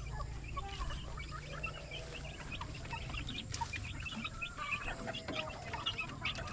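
Chickens clucking and calling, many short overlapping calls from several birds at once, over a steady low rumble.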